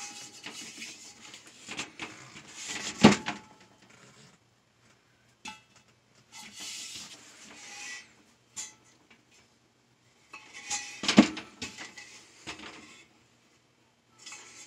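Enamelled steel paella pan being handled and turned over: rubbing and scraping against a surface, with two sharp metallic clanks, the first about three seconds in and the second about eleven seconds in.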